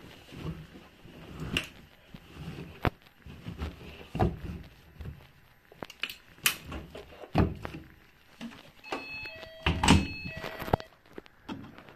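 Bedding rustling and thumping as it is pushed by hand into the drum of a Siemens front-loading washing machine, with a few sharp clicks, then the porthole door shut with a thud about ten seconds in. A few short electronic beeps sound just before and after the thud.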